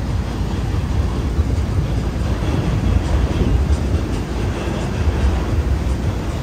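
Steady city street noise: a continuous low rumble of traffic with a general hiss, and no single event standing out.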